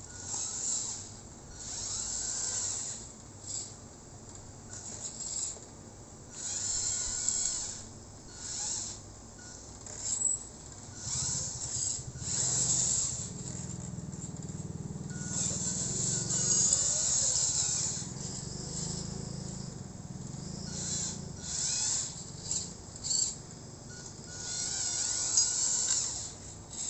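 Small electric motor and gears of a radio-controlled dump truck whirring in many short stop-start bursts, with a steadier low hum for several seconds in the middle.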